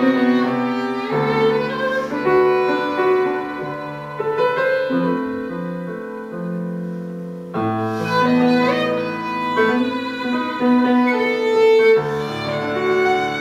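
A violin and a grand piano playing classical chamber music together, the violin holding long bowed notes, with a new, louder phrase beginning a little past halfway.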